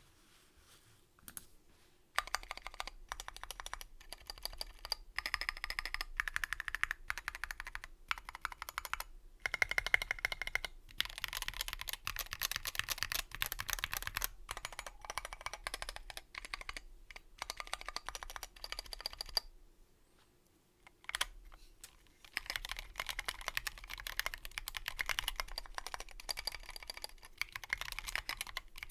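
Continuous typing on a 60% mechanical keyboard with Krytox-lubed Tealio linear switches, SA-profile keycaps and a sound-dampened Revo One case: a dense, rapid run of keystroke clacks. The typing begins about two seconds in, stops briefly about a third of the way through, pauses for a couple of seconds about two-thirds through apart from a single keystroke, then resumes.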